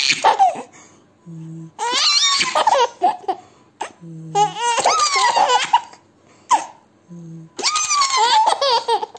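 Baby laughing in three high-pitched bursts of rapid giggles, roughly every three seconds, each one just after a brief low sound.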